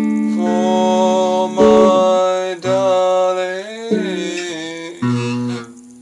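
A man singing held notes that bend in pitch while playing chords on a guitar.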